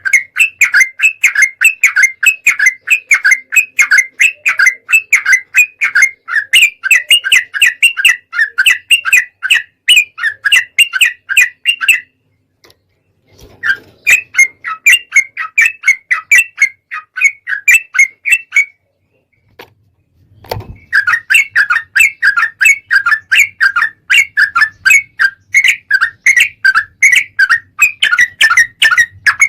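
Yellow-vented bulbul (trucukan) singing its loud, bubbly chattering song: quick repeated notes in three long runs broken by two short pauses. A low thump falls in the second pause.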